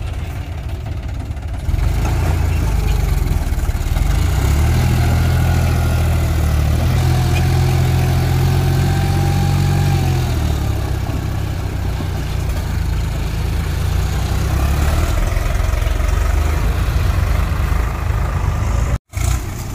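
John Deere 5045D's three-cylinder diesel engine running steadily as the tractor pulls a fully loaded soil trailer. It gets louder about two seconds in. The sound cuts out for a moment near the end.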